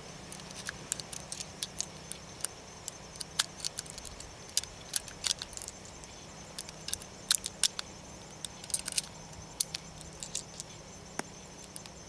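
Irregular sharp metallic clicks of .380 ACP cartridges being pressed one by one into a Bersa Thunder 380 pistol magazine, with the loose rounds clinking together in the hand.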